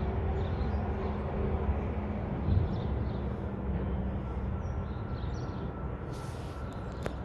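Mack McNeilus front-loader garbage truck's engine running with a steady low rumble that slowly fades, with a single sharp click near the end.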